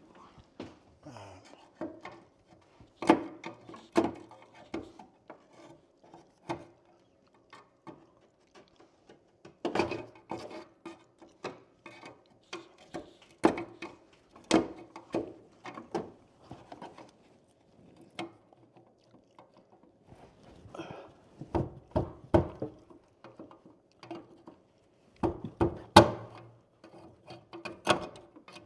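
Irregular knocks, clicks and scraping as an electrical cable is pushed and worked through a hole in drywall and into a plastic electrical box, with sharper knocks now and then.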